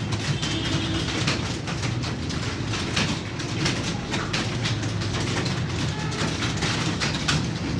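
Computer keyboard typing: a fast, continuous clatter of key clicks over a steady low hum.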